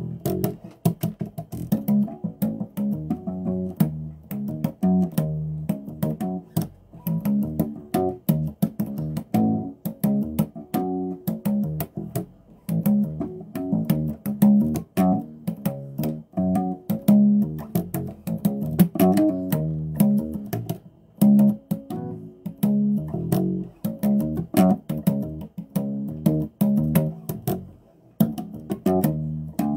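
Electric bass guitar played solo: a continuous run of plucked notes in quick succession, each starting with a sharp click of the string.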